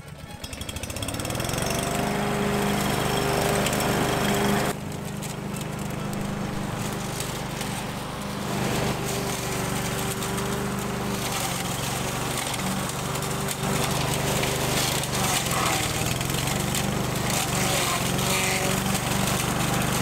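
Petrol walk-behind rotary lawn mower engine speeding up to a steady run over the first second or two, then running on as the mower cuts long grass, its pitch wavering a little now and then under load.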